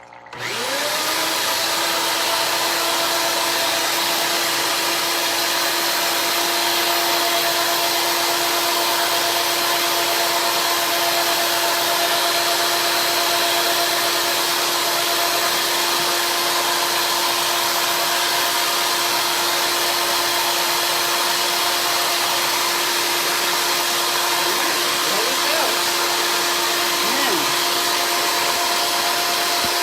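Motor of a ring-cutting machine switching on, spinning up within about a second, then running at a steady speed with a constant hum and whoosh.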